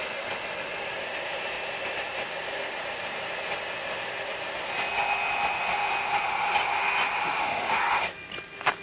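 Steady hiss and hum of a jet cockpit recording, with no voices on the radio. The noise drops away a little after eight seconds in, and a single sharp click comes just before the end.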